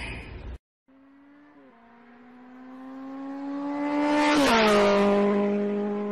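A motor drone with a steady pitch that grows louder, then drops in pitch about four and a half seconds in and holds at the lower pitch.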